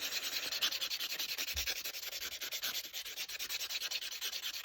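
Nail buffer rubbed back and forth over a dip-powder nail in quick, even strokes, a steady dry rasping as the surface is smoothed of bumps.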